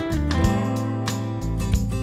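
Background music featuring guitar.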